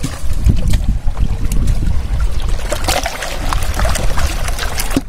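Wind rumbling on the microphone, with river water sloshing and splashing as a plastic crate of shrimp is swished through it to rinse the catch.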